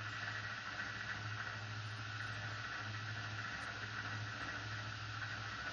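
VPI HW-16.5 record cleaning machine's platter motor running steadily with a low hum, turning a wet record while a brush spreads cleaning fluid over it, with a steady hiss.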